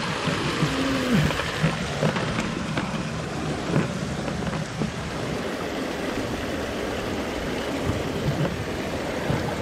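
Steady, even rush of fast-flowing river water through a rapid.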